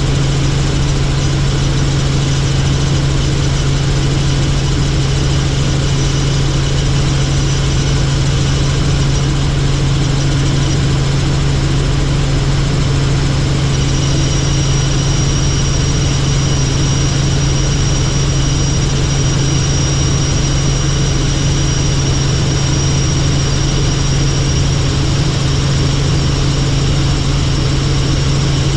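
Helicopter's engine and rotor running steadily: a loud, constant low drone with dense noise over it. A thin high whine grows stronger about halfway through.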